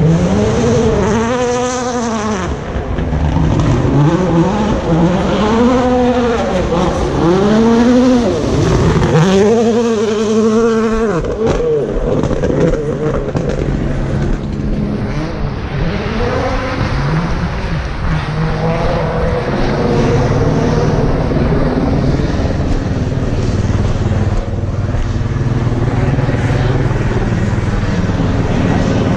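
Rally car engine revving hard, its pitch rising and falling over and over through the first dozen seconds, then running on more evenly.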